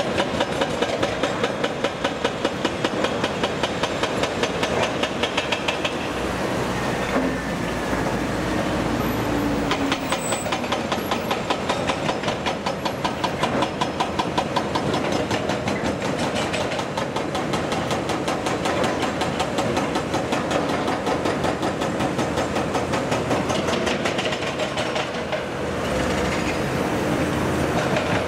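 Case CX370D crawler excavator working, its diesel engine running with a fast, even clatter of about four to five knocks a second. A deeper rumble swells briefly twice.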